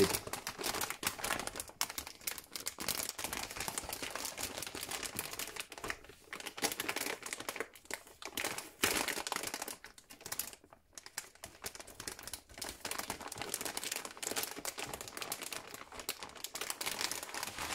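Anti-static plastic bag crinkling and rustling in irregular crackles as hands work a graphics card around inside it, with a brief pause about ten seconds in.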